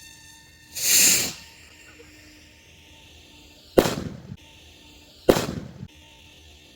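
Pyrotechnic blasts: a short rushing whoosh about a second in, then two sharp bangs a second and a half apart, each trailing off briefly. Faint background music plays underneath.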